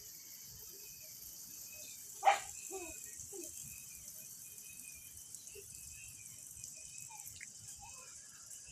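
A steady, high-pitched chorus of night insects, with one sudden loud sound about two seconds in, followed by two fainter short ones.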